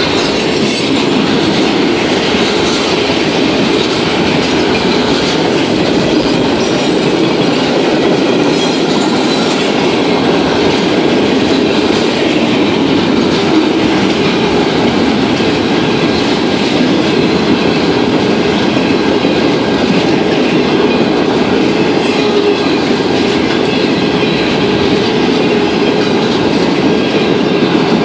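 Freight train's flatcars rolling steadily past: a continuous rumble of steel wheels on rail, with a faint high wheel squeal.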